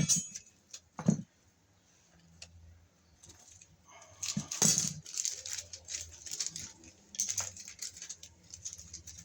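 Hands handling small metal hardware: two sharp clicks, then a run of irregular rattling and rustling, as of sorting through loose screws for the outlet box extension.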